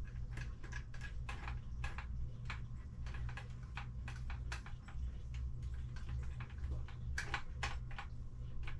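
Irregular light clicks and taps while construction adhesive is spread over the back of a ceramic tile, over a steady low hum.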